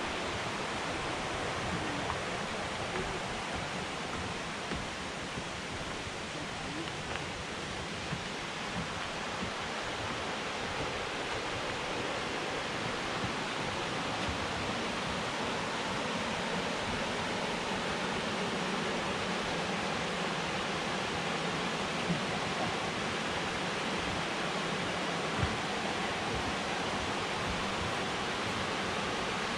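Steady rushing of a fast-flowing creek, with two faint knocks in the second half.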